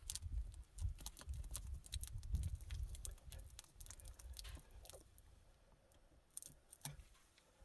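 Irregular clicks, crackles and scrapes of a tire plug being worked into a puncture with a plug-kit insertion tool, over a low rumble. It quiets after about four and a half seconds, leaving a few clicks near the end.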